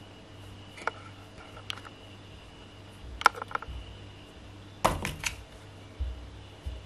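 Cat's paws and body scraping and tapping against a cardboard box: a few short scratchy clicks, a cluster about three seconds in, a louder cluster about five seconds in, then two low thumps near the end, over a steady low hum.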